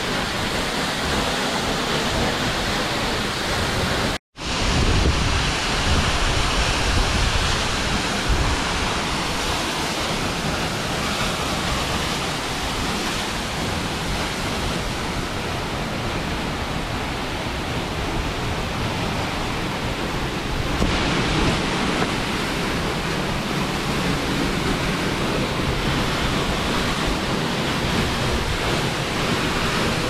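Peričnik waterfall plunging onto rocks: a steady, heavy rush of falling water, with low rumbling buffets. The sound cuts out for an instant about four seconds in.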